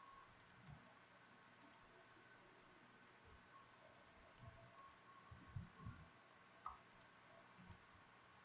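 Near silence with faint computer mouse clicks. There are about seven scattered clicks, several in quick press-and-release pairs, over low room hiss, with a few soft low bumps a little past the middle.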